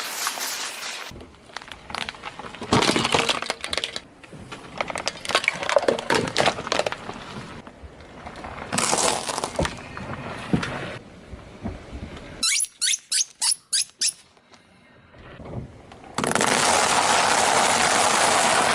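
Objects being crushed under a car's tyres: irregular cracking and crunching, then a quick run of about seven sharp snaps. A loud steady hiss fills the last couple of seconds.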